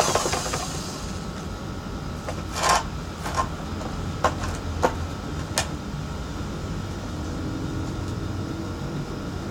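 The drill motor of a homemade pallet-wood drum sander falling in pitch and fading out at the very start, followed by a steady low rumble. Five or six sharp knocks come between about 2.5 and 6 seconds in.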